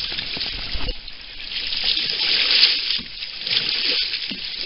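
Kayak paddle strokes through river water: splashing and rushing water, surging loudest about two to three seconds in.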